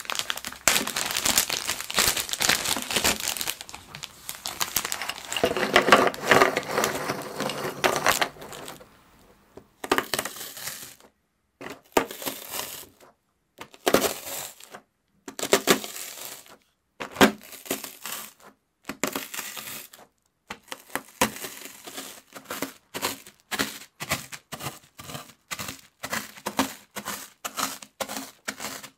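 A clear plastic zipper bag crinkling as it is opened and handled, then round biscuits being crushed inside the bag by blows from the end of a wooden rolling pin: separate crunching strikes, coming quickly, about two or three a second, in the last several seconds.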